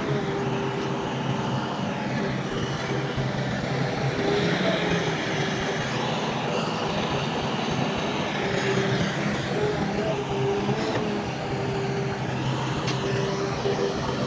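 Heavy diesel earthmoving machinery running steadily, its engine hum carrying a held whine.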